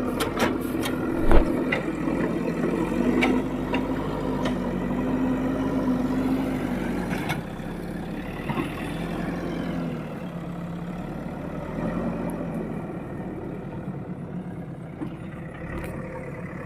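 Heavy diesel engine running steadily, its pitch wavering a little as it works. A single loud knock comes about a second and a half in, and the engine settles somewhat lower after about seven seconds.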